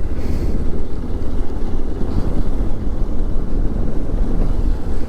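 Motorcycle on the move: a steady engine and road rumble mixed with wind buffeting the mic.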